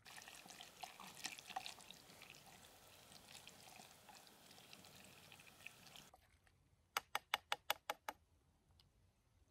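Orange-handled utensil stirring rehydrated noodles in a metal camp pot: faint wet squelching and light scraping for about six seconds, stopping abruptly. Near the end, a quick run of about eight sharp clicks, roughly four a second.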